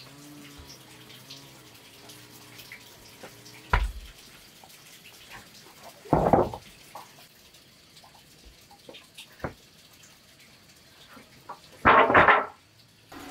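Wooden planks knocking and clattering as they are set down: a single sharp knock about 4 s in, a louder clatter about 6 s in, and a louder doubled clatter near the end.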